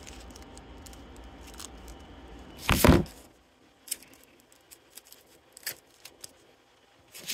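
Circuit-board packaging being handled as a board is worked free of it: rustling and scraping, with one loud crinkle about three seconds in, then scattered light clicks and taps.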